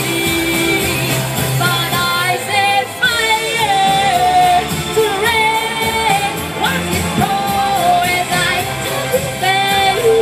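A solo singer singing live into a microphone over backing music with a steady beat, amplified through stage loudspeakers; the voice holds and bends long sung notes.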